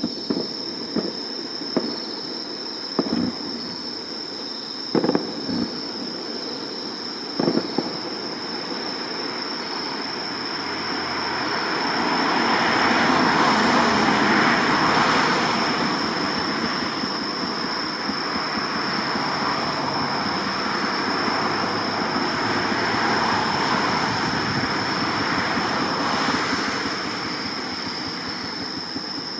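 Fireworks going off: several sharp bangs in the first eight seconds, then a long dense rushing hiss that swells about twelve seconds in and carries on. A steady high insect trill runs underneath.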